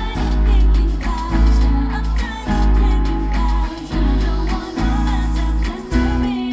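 Loud pop dance track with a heavy bass line and a singing voice, played at a live stage show; the bass drops out near the end.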